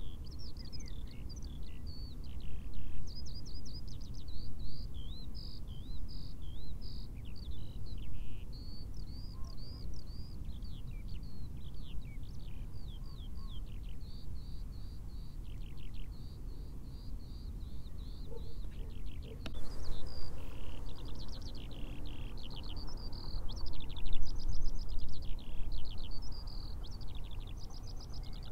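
A songbird singing almost without pause, fast chattering runs of high notes, over a steady low rumble. A brief sharp click sounds about two-thirds of the way through.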